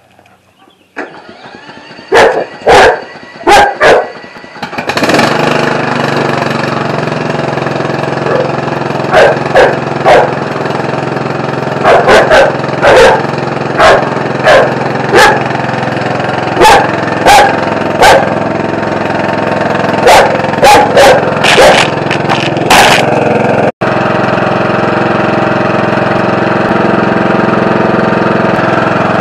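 A Husqvarna riding lawn mower's engine starts in the first few seconds and then runs steadily, while dogs bark at it in repeated bursts, the barks being the loudest sounds. The barking stops near the end, leaving only the engine running.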